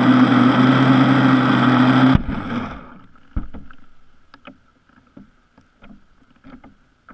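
Brushless electric motor of an Aquacraft Wildcat EP RC catamaran running at full speed, with water rushing past the hull, cutting off suddenly about two seconds in. The boat then drifts, with soft water drips and lapping and one sharp knock about a second after the motor stops.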